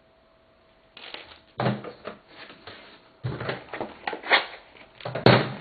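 Cardboard card boxes and packs being handled: irregular rustling and scraping with a few sharp knocks, the loudest near the end.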